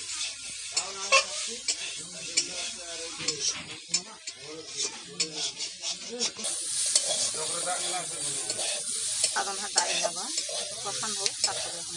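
Metal spatula scraping and stirring pieces of kuchia eel frying in a kadai, with a steady sizzle of hot oil and many short scrapes against the pan. The sizzle gets louder about halfway through.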